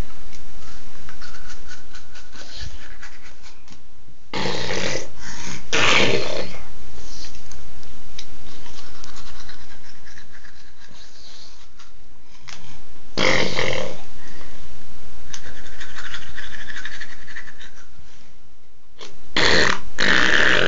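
A dog making vocal noises in four short bursts, each about a second long, while its teeth are being brushed.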